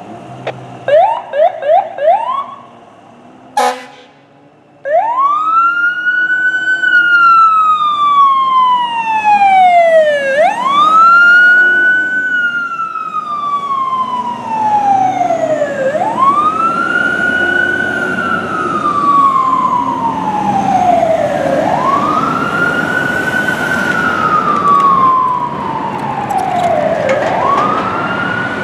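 Fire engine siren on an emergency response. A few short rising chirps come first, then from about five seconds in a wail that climbs quickly and falls away slowly, again and again about every five and a half seconds.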